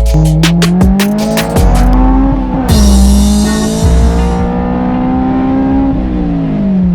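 Honda S2000's F20C 2.0-litre four-cylinder engine accelerating hard, with a lightweight crank pulley fitted. The revs climb, drop sharply at a gear change about two and a half seconds in, and climb again. They fall away near the end as the throttle closes. A loud hiss joins in from about three to four and a half seconds in.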